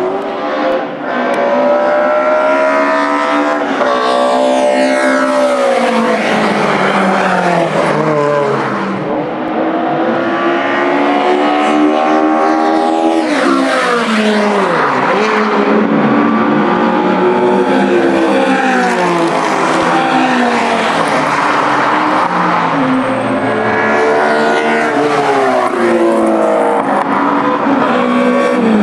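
Race cars passing at speed one after another, several engines overlapping. Each engine note climbs in pitch through the gears and then drops away as the car goes by, with clear passes near the start, in the middle and near the end.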